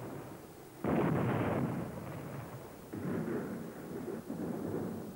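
Artillery fire: heavy booms, one about a second in and another about three seconds in, each rumbling away before the next.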